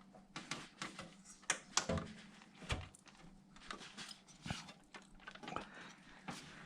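Irregular clicks, taps and light scrapes of a thin metal motherboard I/O shield being shifted and pushed into place in a computer case's rear opening, over a steady low hum.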